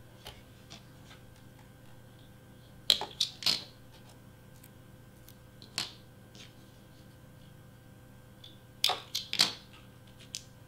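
Cardstock and small craft snips being handled on a cutting mat: three short clusters of crisp paper rustles and clicks, a few seconds in, around the middle and near the end.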